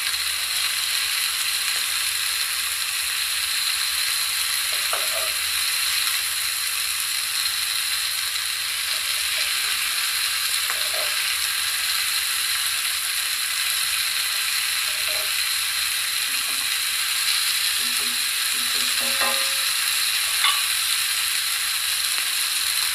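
Prawns frying in butter and masala in a non-stick pan over a low flame, a steady sizzle, with a few faint scrapes and taps of a spatula and spoon as the prawns are turned.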